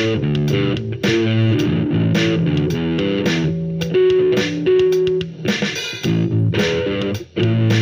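Ibanez electric bass guitar played in a run of quick plucked notes, each with a sharp attack. There are two briefly held higher notes about four to five seconds in and a short gap just past seven seconds.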